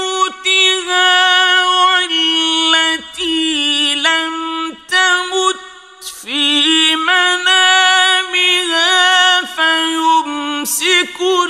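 A male qari's voice reciting the Quran in the slow, melodic mujawwad style, holding long notes with ornamented turns in pitch. There is a short breath pause about six seconds in.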